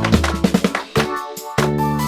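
Background music: a quick run of drum hits, a short break about a second in, then the full band comes back in with sustained bass and chords.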